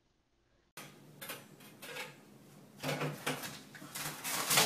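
After a brief silence, irregular scratching, tapping and rattling as a cat paws at a front door, the knocks bunching up near the end.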